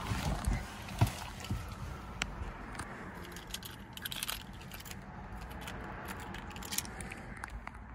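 Keys clinking and a scatter of small clicks as an Acura switchblade key fob is handled, with a couple of soft thumps in the first second.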